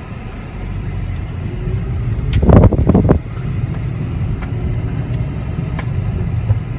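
Jeep Patriot cabin noise while driving: a steady low engine and road rumble, with a brief loud rushing burst about two and a half seconds in and scattered faint ticks after it.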